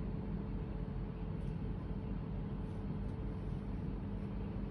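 Steady hum and hiss of the room's air-conditioning unit, an even drone with two constant low tones and no change throughout.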